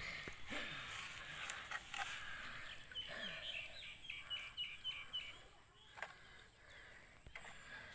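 Faint outdoor birdsong. About three seconds in, one bird repeats a short high note about seven times in quick succession over a haze of other calls. A few light clicks come from hands picking through the net.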